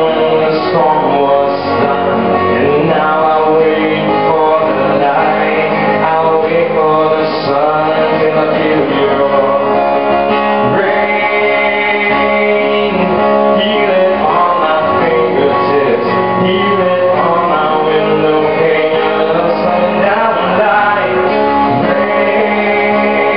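A man singing a song while accompanying himself on guitar, in a solo live performance.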